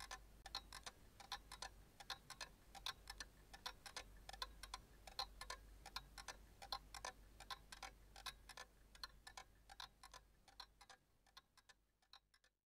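A clock ticking, a few sharp ticks a second with a slight ring to each, fading out over the last couple of seconds.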